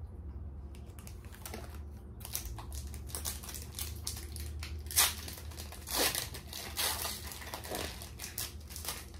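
Foil wrapper of a Pokémon booster pack crinkling as it is handled and torn open, with a few sharp, louder rips in the second half.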